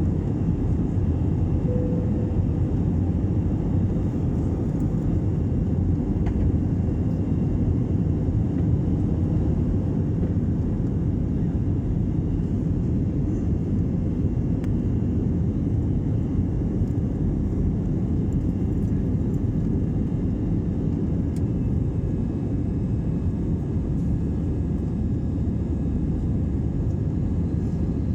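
Airplane taking off: a steady low rumble of jet engines and airflow, easing slightly near the end.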